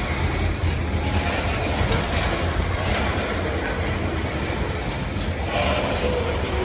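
BNSF coal train's cars rolling past, a steady low rumble of steel wheels on rail, with a brief high-pitched squeal about two seconds in.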